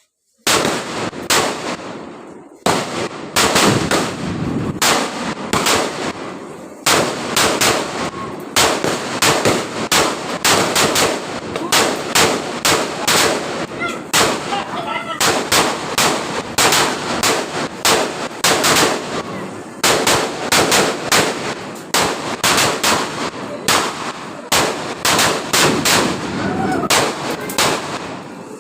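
A string of firecrackers going off in a rapid, continuous rattle of sharp bangs that sounds like machine-gun fire, starting suddenly about half a second in.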